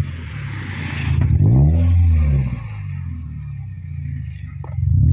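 Toyota Vios exhaust through a GReddy chambered muffler as the parked car's engine is revved: one short rev about a second in that rises and falls back to idle, then another rev starting near the end.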